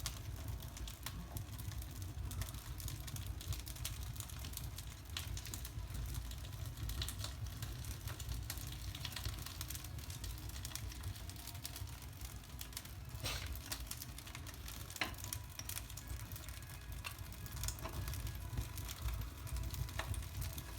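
Wood fire crackling in a fireplace as bark and kindling burn, with irregular sharp pops, a few louder ones about two-thirds of the way through, over a low steady rumble.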